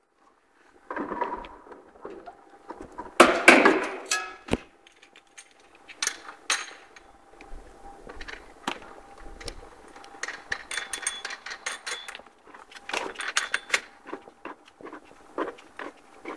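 Irregular metallic clinks, clanks and rattles of wheel nuts and parts being handled as the rear wheels are fitted onto a mini quad's hubs. The loudest clatter comes about three to four seconds in.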